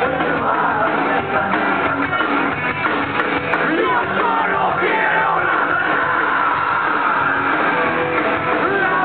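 Live rock band playing, with drums, electric guitar and a singer's vocals.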